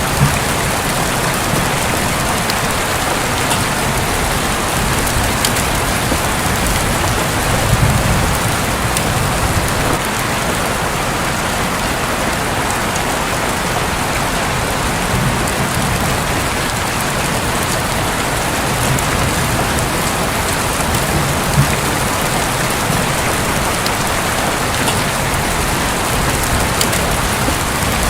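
Heavy rain falling steadily on a roof, a dense even hiss with individual drops ticking through it. Soft low rumbling swells come and go a few times.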